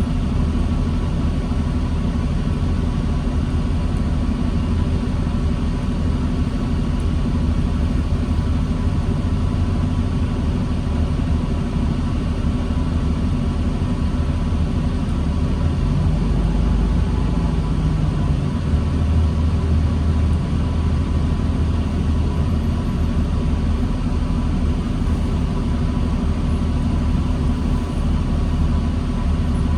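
New Flyer D40LFR diesel transit bus heard from inside, engine running with a steady low rumble in stop-and-go traffic. About halfway through, the engine note briefly rises and deepens, as if the bus pulls forward a little, then settles again.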